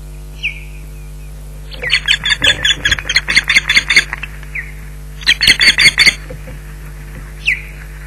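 Ospreys giving intruder alarm calls at the nest: single high whistled notes that slur downward, and two rapid runs of sharp piping calls, a long one from about two seconds in to four and a shorter one between five and six seconds.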